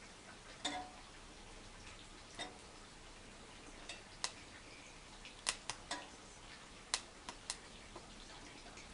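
Dry twigs snapping and clicking in a small wood-burning stove: about a dozen sharp, irregular clicks, several bunched together around the middle.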